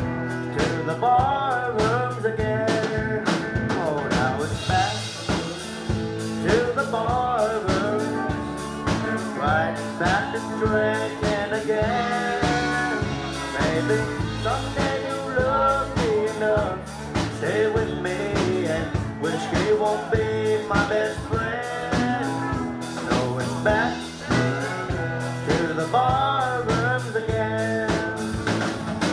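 Live country band playing a honky-tonk number on electric guitars and drums, the music running on without a break.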